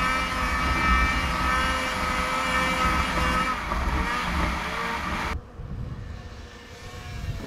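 Snowmobile engine running at speed, heard from the rider's seat, a steady engine tone over rushing wind and track noise. About five seconds in it cuts off abruptly to a quieter, more distant snowmobile engine whose pitch wavers.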